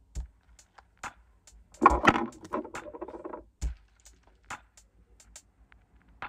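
Small plastic lip-balm containers, a Nivea stick and a Vaseline tin, being handled: scattered light clicks and taps, with a louder run of knocks and scrapes about two seconds in.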